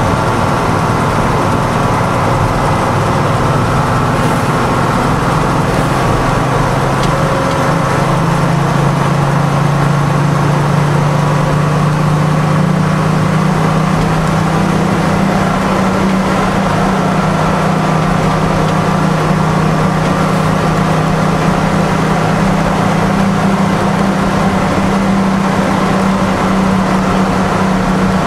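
Detroit Diesel 6-71 two-stroke inline-six diesel of a Seagrave fire engine, heard from inside the cab, pulling steadily down the road. Its pitch climbs a little about eight seconds in and then holds.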